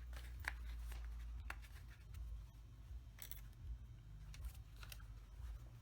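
Faint scattered clicks and crackles of a Samsung Galaxy S8's glass back cover being pulled free of its adhesive, over a low steady hum.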